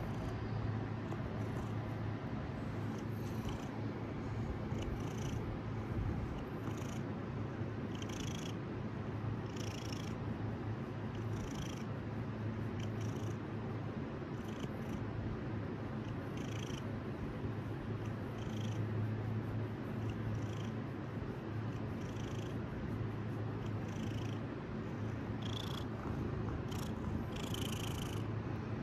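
Domestic cat purring steadily and deeply while being scratched under the chin, the purr swelling and easing gently with its breathing.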